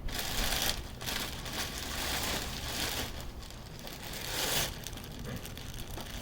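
Plastic packaging crinkling and rustling as it is handled, in several separate swishes.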